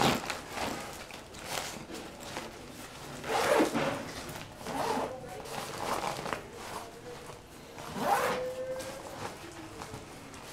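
Zipper on a fabric laptop sleeve being pulled in several short rasps, with the fabric rustling as the sleeve is handled.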